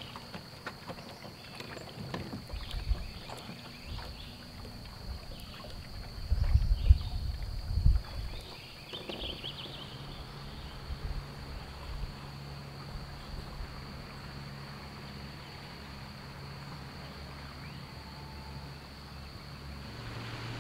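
Outboard motor of a small motorboat running, a steady low drone, with low gusty rumbles of wind on the microphone about six to eight seconds in.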